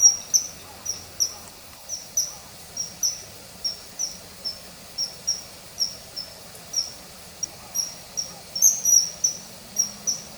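Common kingfisher calling: a high, thin, short whistle that drops slightly in pitch, repeated steadily two to three times a second.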